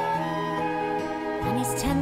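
Instrumental accompaniment from a Broadway musical cast recording, holding sustained chords; a low note slides upward near the end.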